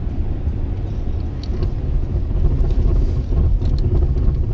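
Steady low rumble of a car driving, heard from inside the cabin, with a few faint clicks scattered through it.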